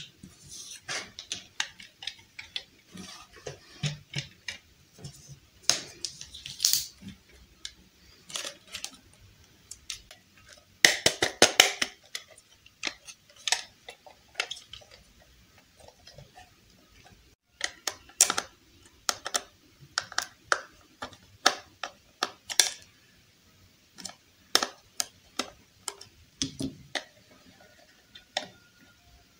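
Hard plastic toy iron being handled and turned over: scattered sharp clicks and taps of plastic, with a short burst of quick rattling clicks about eleven seconds in.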